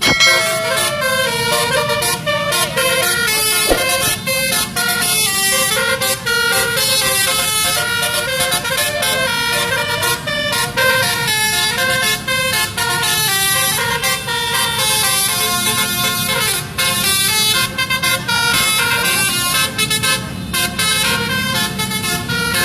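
Basuri musical bus horn playing a quick, continuous melody of short stepping notes, with a low rumble underneath.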